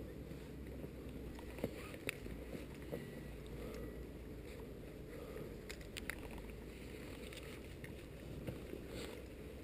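Wind rumbling on an action camera's microphone, with a few sharp clicks about two seconds in and again around six seconds.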